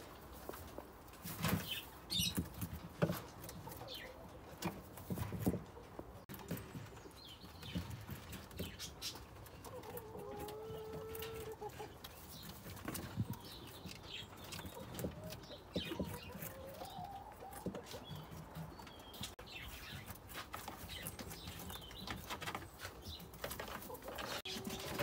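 Rustling and scratching in dry hay as a young rabbit moves about a wooden hutch, with scattered sharp clicks and knocks. A few short animal calls come through about ten and sixteen seconds in.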